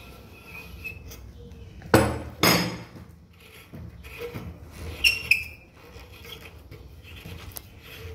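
Metal clanking as an adjustable wrench knocks against and is set down by a brass CO2 regulator: two heavy clanks about two seconds in, then two lighter ringing clinks about five seconds in, with handling noise between.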